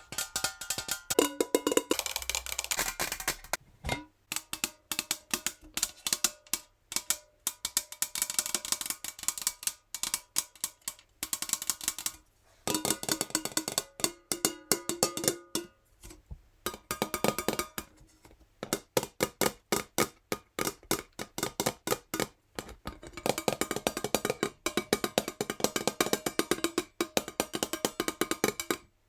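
Natural fingernails tapping very fast on a metal jar: rapid runs of sharp clicking taps with a faint metallic ring behind them, broken by several short pauses.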